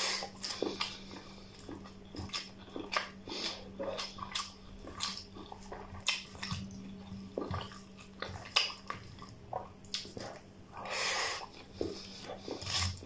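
Close-up mukbang eating sounds: wet chewing, lip smacks and mouth clicks, irregular and frequent, as a man eats spicy mutton curry and rice by hand. About eleven seconds in there is a breathy intake or exhale lasting about a second.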